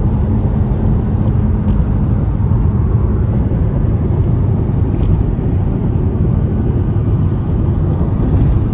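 Steady road noise of a car driving across a steel truss bridge, heard from inside the cabin: an even low rumble of tyres and engine.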